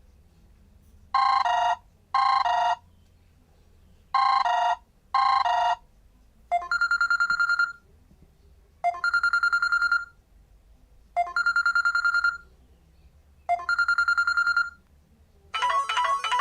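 Samsung Galaxy Y GT-S5360 ringtones playing through the phone's speaker. First comes an electronic double ring: two pairs of short rings. Then a different trilling ring sounds four times, each about a second long and a little over two seconds apart, and a third, musical ringtone starts near the end.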